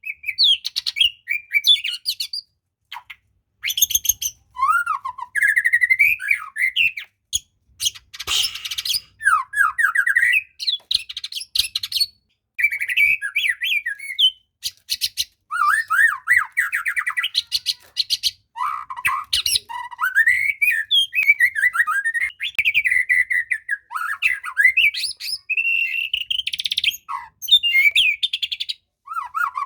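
Murai batu (white-rumped shama) singing: varied loud whistled phrases, sliding notes and quick trills, broken by short pauses, the song a keeper coaxes from a reluctant bird.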